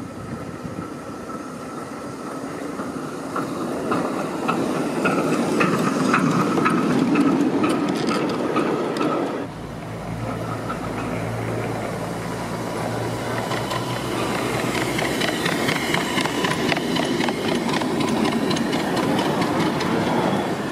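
Miniature railway train running on the track, growing louder as it comes toward the camera. After an abrupt change about nine seconds in, it builds up again and passes close by near the end.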